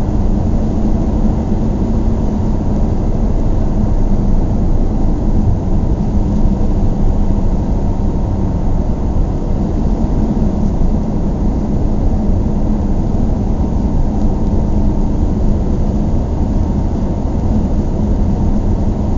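Steady cabin noise inside a closed car cruising on the highway: a low, even rumble of road and engine noise with a faint hum, unchanging throughout.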